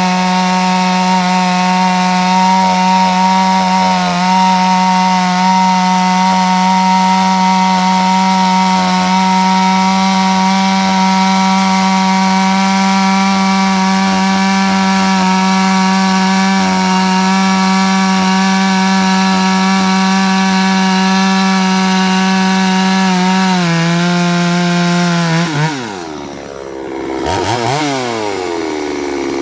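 Two-stroke chainsaw running at high, steady revs under load as it cuts through a log with a chain sharpened at 50 by 10 by 30 degrees. This chain would not bite and stay in one spot but jumped around in the cut. Near the end the engine drops off and is revved up and down in short blips.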